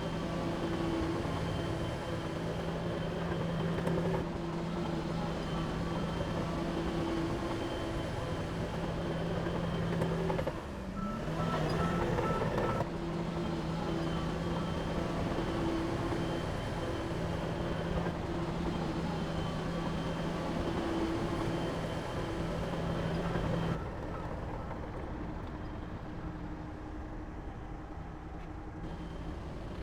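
Heavy diesel engine of earthmoving equipment running steadily with a low hum. A short series of high beeps sounds around the middle, and the engine sound drops lower and quieter near the end.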